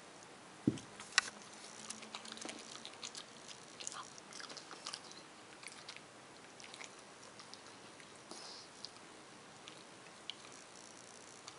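A West Highland white terrier crunching and chewing a piece of grilled chicken gristle: a string of sharp, crunchy clicks, thick in the first half and thinning out near the end. A dull thump comes just before the chewing starts.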